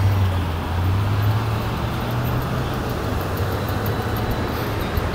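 Street traffic: an SUV driving past close by with a low engine hum that rises slightly over the first couple of seconds, then steady traffic noise.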